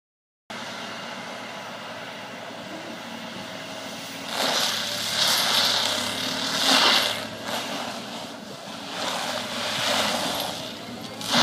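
An excavator-mounted forestry mulcher, driven by a 375 hp power pack, starts abruptly about half a second in and runs steadily. From about four seconds in, its toothed head grinds into wood in repeated loud, harsh surges.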